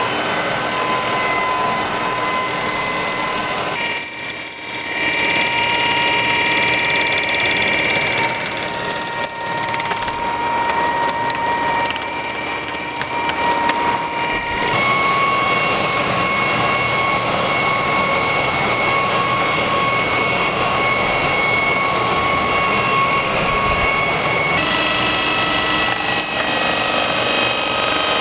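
Handheld concrete grinder (a WerkMaster Scarab head driven by a Makita angle grinder) running steadily as it polishes a concrete floor with resin diamond pads: a motor whine over a grinding hiss. The pitch of the whine steps abruptly about 4, 15 and 25 seconds in.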